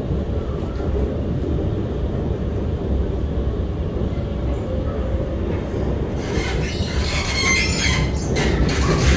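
R151 MRT train running, heard from on board: a steady low rumble. About six seconds in, a loud high screech of the wheels on the rails starts and keeps going.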